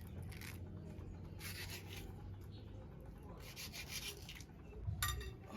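Knife cutting and scraping through mango, several rasping strokes a second or so apart.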